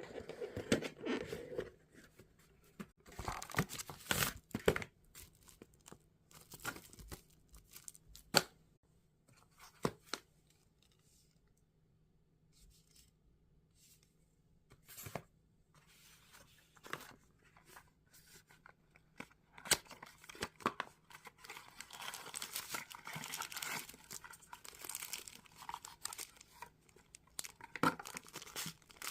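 Packaging being handled and opened: irregular spells of rustling, tearing and crinkling, with scattered sharp clicks and knocks between them and a longer stretch of rustling near the end.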